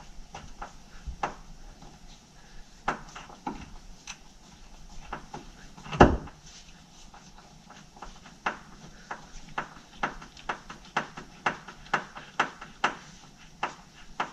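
Self-tapping screws being driven by hand into sheet metal. A series of light clicks and taps, with one loud knock about six seconds in, settles into an even clicking of about two to three a second near the end as a screw is turned in.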